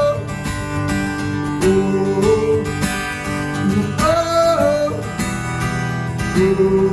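Live worship band music: acoustic guitar strumming steady chords while a singer holds long wordless 'oh' notes that slide between pitches.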